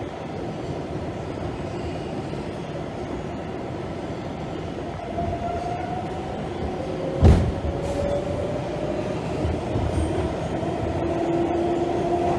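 Subway car running, heard from inside the carriage: a steady rumble and rattle, with faint whining tones that rise slowly in pitch. There is a single loud clunk about seven seconds in.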